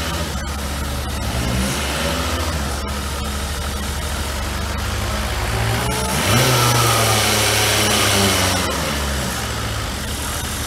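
Forklift engine running steadily, revving up about six seconds in and dropping back a few seconds later.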